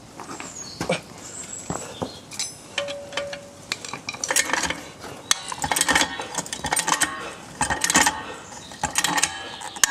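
Car jack being pumped by hand to lift the car, its handle and mechanism clanking and clicking with each stroke. The clanks are light at first and grow louder from about four seconds in, coming roughly once a second.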